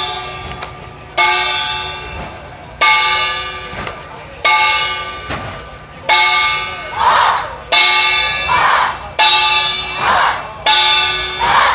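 A deep bell struck about every second and a half, each stroke ringing out and fading before the next. Short group shouts come between some of the strokes in the second half.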